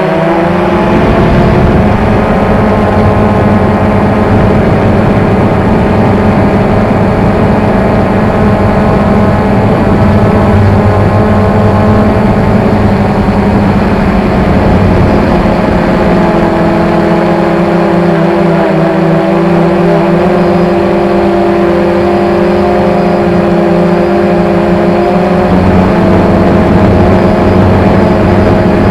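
XK X380 quadcopter hovering: its four motors and propellers give a steady hum made of several tones. The pitch dips briefly near the start and shifts slightly a few times as the motors hold it in place.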